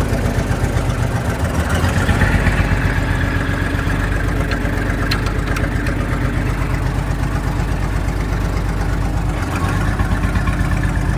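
Farm tractor engine running steadily at low speed just after a cold start, warming up.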